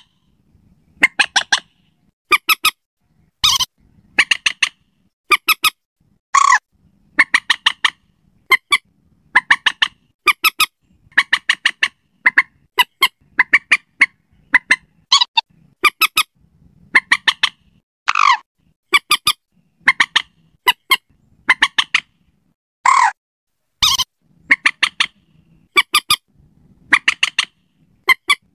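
Common moorhen (mandar batu) calling over and over: quick clusters of short clucking notes about once a second. A longer falling call comes about two-thirds of the way through and again a few seconds later, with a couple of sharp clicks in between.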